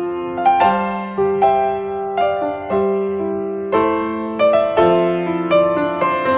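Background piano music: a slow melody of struck notes over chords, each note fading away before the next.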